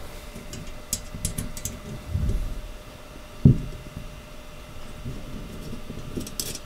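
Small clicks of metal bolts and nuts being handled and fitted by hand to a metal doll bed frame, with a soft thump about two seconds in and a sharper knock, the loudest sound, about three and a half seconds in.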